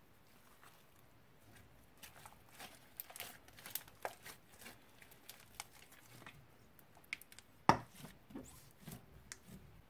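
Slime being kneaded and stretched by hand: a run of irregular sticky crackles and small pops that thickens about two seconds in, with one sharper pop about three quarters of the way through.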